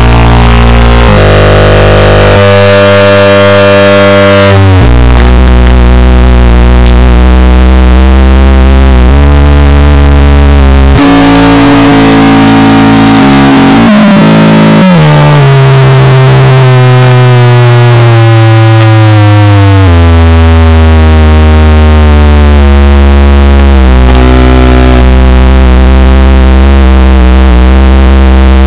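Very loud, distorted, clipped electronic noise of droning held tones over a harsh hiss. The pitch jumps to new levels every few seconds, with a jumbled stretch and then a long downward slide in the middle.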